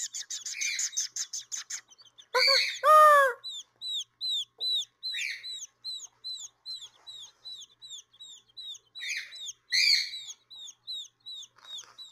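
Baby quail chicks peeping: a steady run of short, high, falling peeps, about two to three a second, with a quick flurry of ticking peeps at the start. About two and a half seconds in, a louder, lower bird call stands out.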